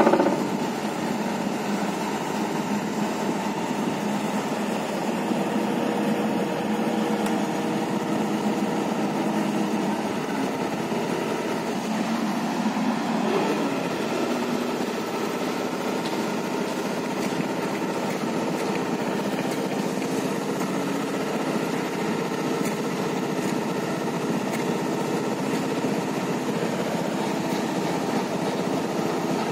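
Excavator-mounted vibratory pile driver running steadily as it sinks a steel pipe pile into sand, with the excavator's diesel engine working under load. The noise is a continuous mechanical drone rather than separate hammer blows.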